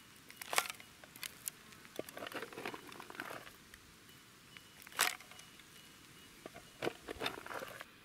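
Small tin can scooping dry, gravelly soil from the bottom of a post hole and tipping it onto a dirt pile: scattered scrapes and crunches of dirt and small stones. The loudest come about half a second in and about five seconds in.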